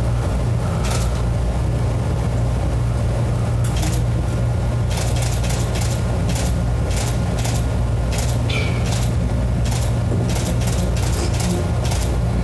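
Police body-camera audio: a steady low hum with a run of short scuffing sounds, about two a second, from the wearer's footsteps as he walks. A brief falling squeak about eight and a half seconds in.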